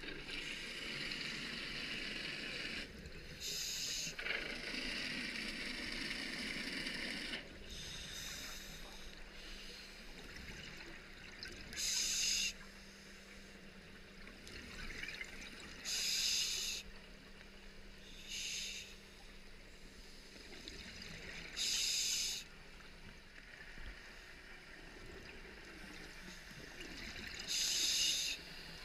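Scuba diver's regulator breathing heard underwater: short gushes of exhaled bubbles about every four to six seconds, with softer hissing and bubbling between.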